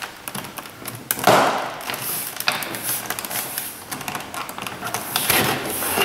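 Plastic door trim panel being worked onto a car's rear door: a run of light clicks and taps, with a louder scraping rustle about a second in and again near the end.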